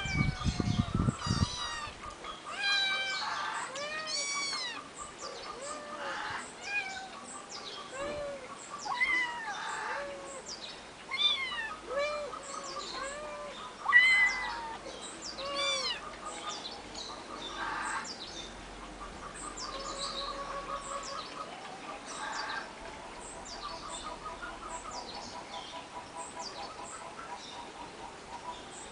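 Young kittens, about eight weeks old, meowing repeatedly in short rising-and-falling calls, with birds chirping in quick high notes behind them.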